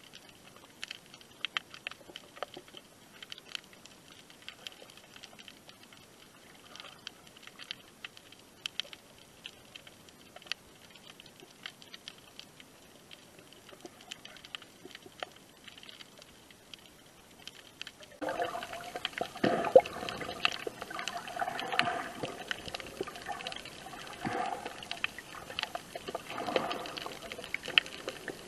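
Underwater sound picked up through an action cam's waterproof housing. At first there are only faint scattered clicks and crackles. About eighteen seconds in, a much louder muffled churning and rushing of water begins as the camera goes down under the surface.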